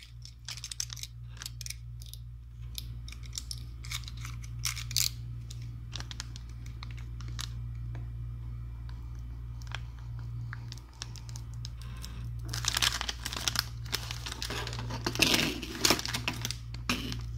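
Metallic anti-static foil bag being cut and opened by hand: scattered clicks and rustles, then dense crinkling and tearing for the last few seconds, over a steady low hum.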